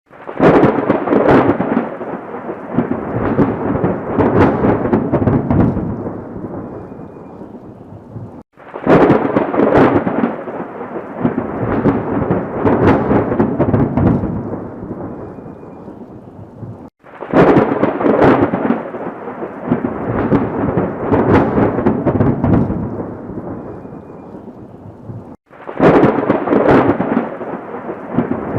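Thunderstorm sound effect: thunder cracking sharply, then rumbling and slowly dying away. The same thunderclap clip is looped about every eight and a half seconds, each pass cut off abruptly and starting again loud.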